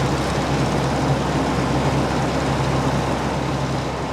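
Fortschritt E514 combine harvester running steadily while cutting barley: a constant engine drone under a dense, even noise of threshing machinery.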